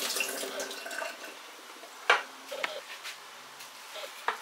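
Water being drained off a bowl of apple chunks into a kitchen sink, splashing and tailing off about a second in, followed by a few short knocks of the bowl.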